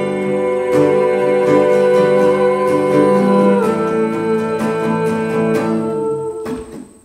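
Instrumental break of an acoustic folk song: guitars strummed and picked over long held cello notes, thinning out and dropping away near the end.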